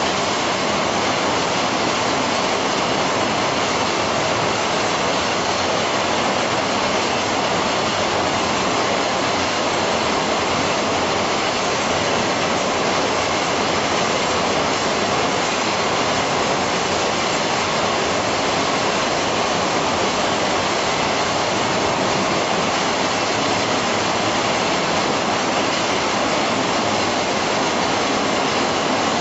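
Poultry processing line machinery running: a loud, steady, unbroken rush of noise with no distinct rhythm or knocks.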